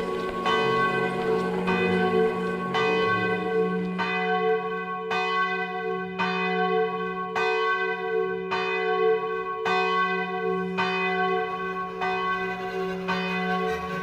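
Show music: a bell tone struck evenly about once a second, each strike ringing into the next, over a sustained low drone.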